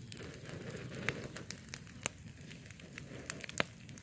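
Open wood fire of dry leaves, twigs and bamboo crackling, a steady rustle with scattered sharp pops, the loudest about three and a half seconds in.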